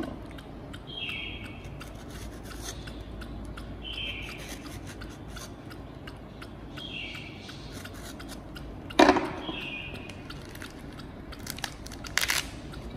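A kitchen knife scoring and cutting through the rind of a pomegranate, with small scrapes and clicks, a sharp knock about nine seconds in, and a crackle near the end as the fruit is pulled apart by hand. A short falling chirp repeats about every three seconds.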